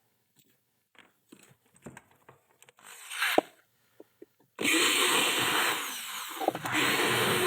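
Light handling clicks and taps, then about four and a half seconds in a handheld power tool, such as an electric drill or screwdriver, starts suddenly and runs loudly.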